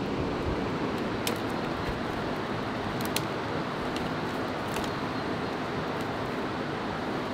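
Steady rushing of river water and a nearby waterfall, with a few short sharp clicks of dry twigs being handled and snapped.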